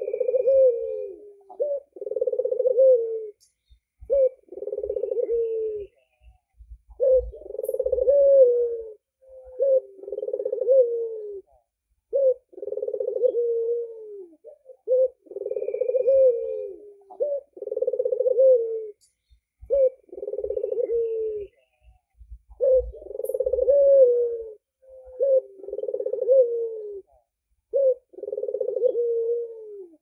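Albino ringneck dove (puter) cooing over and over, a steady run of low rolling coos about every two seconds, each phrase ending on a falling note.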